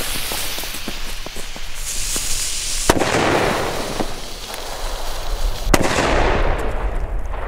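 Two Funke Honey Badger firecrackers going off about three seconds apart, each a sharp bang with a short echo after it. The lit fuses hiss before the first bang.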